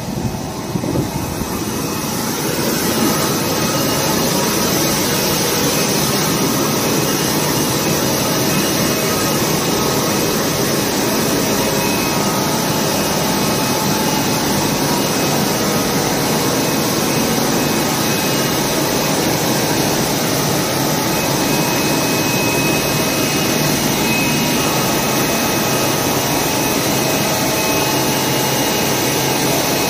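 Flour mill machinery running: a loud, steady mechanical drone with a few constant tones. It grows louder over the first three seconds, then holds steady.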